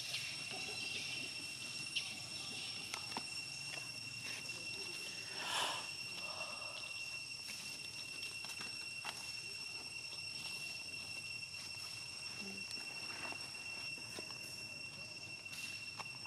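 Insects singing in a steady, unbroken high-pitched drone held on one note, with a few faint clicks and a brief louder sound about five and a half seconds in.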